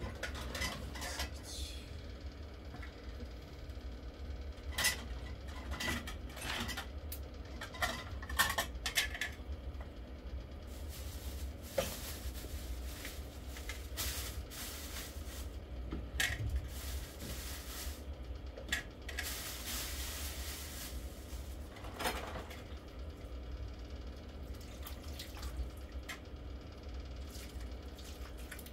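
Ceramic plates and dishes clinking and knocking as they are set down and handled, in scattered irregular clinks over a steady low hum. A few seconds of soft hiss come a little past the middle.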